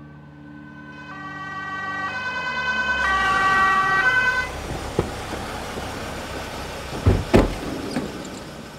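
Ambulance two-tone siren switching pitch about once a second, growing louder as it approaches, then cutting off suddenly about four and a half seconds in. The vehicle runs on with a low rumble, and two loud thumps come close together about seven seconds in.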